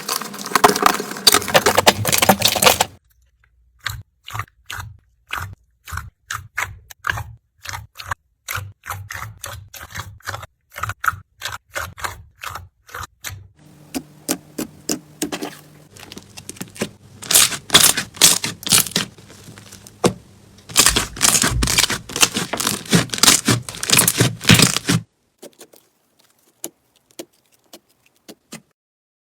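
Slime being pressed and squeezed, giving crackling, crunching pops. A dense run of crackles comes first, then scattered clicks, then two more dense runs, and it goes nearly quiet near the end.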